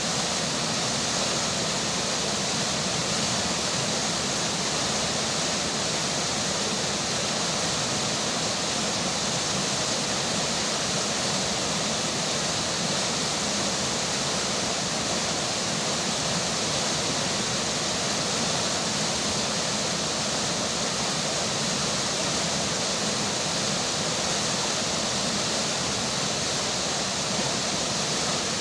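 Flowing river water with rainfall: a steady, even rushing hiss that never changes.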